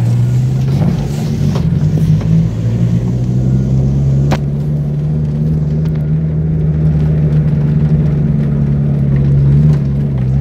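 Engine of an off-road 4x4 running steadily at low speed, heard from inside the cabin on a rough dirt track. A single sharp knock comes about four seconds in.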